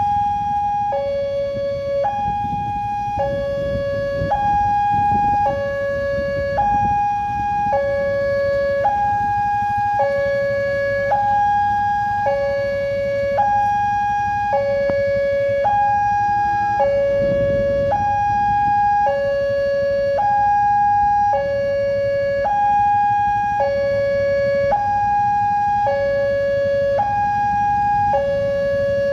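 Railway level-crossing warning alarm sounding a continuous two-tone hi-lo signal, switching between a higher and a lower tone about once a second: the crossing is closed with the barrier down. Motorcycle engines run low underneath.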